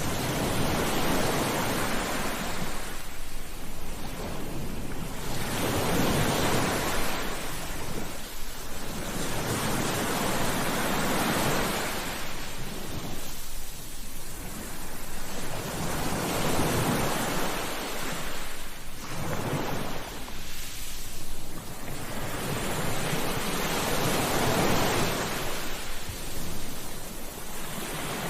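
Sea waves breaking and washing up a beach, the surf swelling and ebbing in a slow rhythm, about one wave every four to five seconds.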